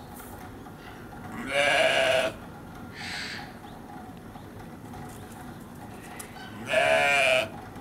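Sheep bleating twice, about five seconds apart: each bleat is loud, wavering and under a second long.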